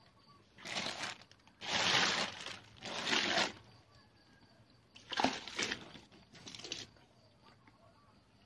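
Clear plastic sheeting crinkling and rustling in five short bursts as it is brushed and pushed aside.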